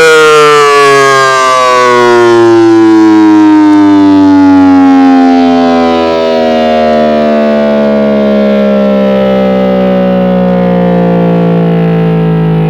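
Federal Signal SD10 electromechanical siren winding down: its wail falls slowly and steadily in pitch, from a high tone to a low moan.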